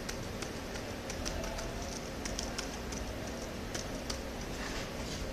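Light, irregular ticks of a folded paper being tapped and shaken to sprinkle baking soda onto a fresh Super Bonder (superglue) seam on a plastic part, with a steady low hum behind.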